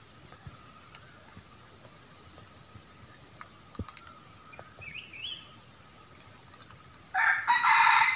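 Quiet forest background with a faint steady high hum and a short chirp about five seconds in; about a second before the end a loud, harsh burst of noise breaks in.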